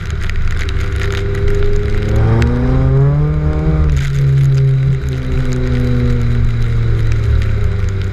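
Honda S2000's four-cylinder engine revving hard during a drift, its pitch climbing about two seconds in and falling away near four seconds, then holding high again, with scattered sharp clicks.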